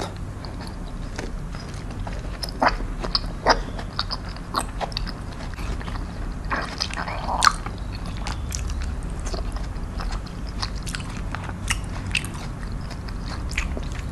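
A person biting and chewing peeled rambutan fruit: irregular short clicks of the mouth, with a louder one about seven and a half seconds in.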